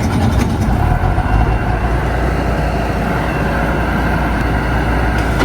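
An engine running steadily at an even speed, a constant low rumble with no change in pitch.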